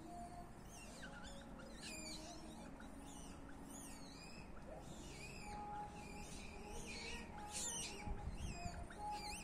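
Repeated high, squeaky chirping calls, several a second and most dense near the end, over faint background music.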